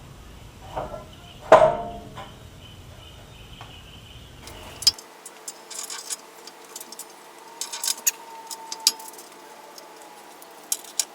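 Work on a 1955 Chevy truck bed: one loud, ringing metal clank about a second and a half in, then scattered light clicks and taps of bolts and parts being handled.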